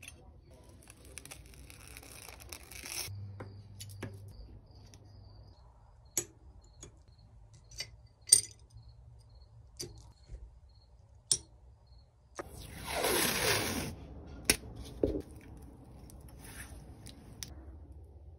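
Pieces of stained glass clinking and tapping as they are handled and set down on a work surface, as a handful of separate sharp clicks. Two short scraping rushes come between them, the louder about two-thirds of the way through.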